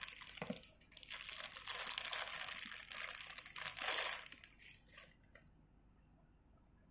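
Clear plastic bag crinkling as it is handled and a spinning-reel handle is pulled out of it, stopping about five seconds in.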